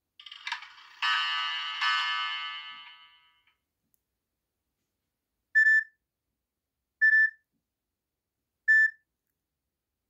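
Nokia E66 phone speaker playing preloaded tones: the 'Alarm 2' tone, a bright ringing electronic tone struck twice about a second apart that dies away by about three and a half seconds in. After a pause, three short, single-pitched beeps about a second and a half apart come from the 'Beep twice' and 'Beep' alert tones.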